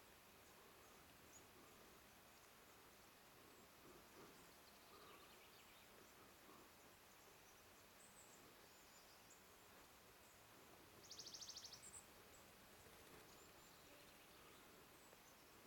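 Near silence: a faint steady hiss, with a few faint high chirps and, about eleven seconds in, one short, rapid, buzzy trill lasting under a second.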